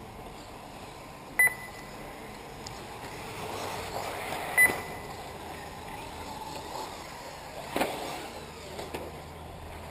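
Radio-controlled off-road cars running on a dirt track. Two short, high beeps cut through, about three seconds apart, and a short sharp knock comes near the end.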